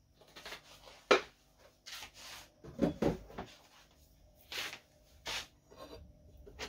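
Kitchen handling noises: bursts of rustling and scraping, a sharp knock about a second in, and two duller thuds near the middle.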